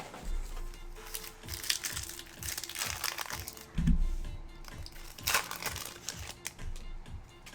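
Plastic wrapping on a trading-card blaster box and its packs crinkling in several bursts as it is opened by hand, with a dull thump near the middle, over quiet background music.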